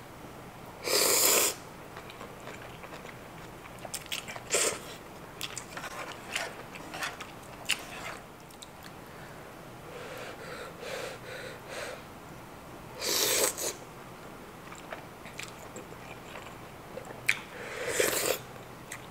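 A person eating udon noodles in a creamy, spicy kimchi sauce: four loud slurps, about a second in, around four and a half seconds, around thirteen seconds and near the end, with soft chewing and mouth clicks between them. The last slurp is sauce sipped from a wooden spoon.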